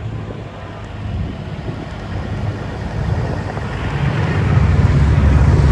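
Semi truck's diesel engine running as the truck approaches, a low rumble that grows steadily louder over the last two seconds.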